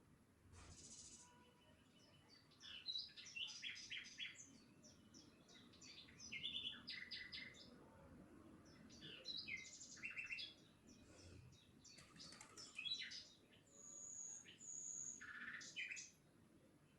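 Faint birdsong from several birds: a busy run of short chirps and trills, with two brief high whistles about two-thirds of the way in.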